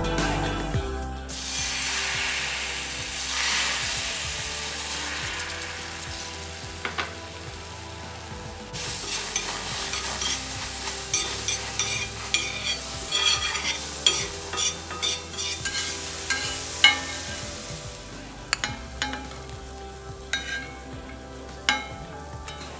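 Egg mixture sizzling in hot oil in a pan, the sizzle fading over several seconds. Then a spatula stirs it, clicking and scraping against the pan many times.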